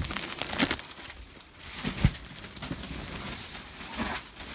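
Plastic wrapping crinkling and rustling as a freshly unpacked mattress is handled, with one dull thump about two seconds in.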